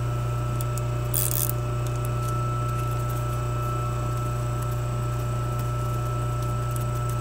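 A hand tap being turned with a tap wrench, cutting threads in an aluminium plug: small scraping and clicking, with a brief high scrape about a second in. A steady low machine hum runs underneath and is the loudest sound.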